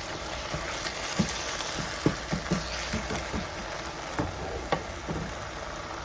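Ground beef sizzling in a frying pan, with a utensil knocking and scraping against the pan many times as the meat is stirred.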